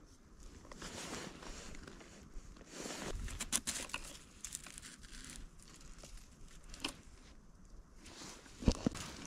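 Close rustling and crinkling of hands, jacket and brush while a wire rabbit snare is set between alder saplings, broken by scattered small clicks and a sharper knock near the end.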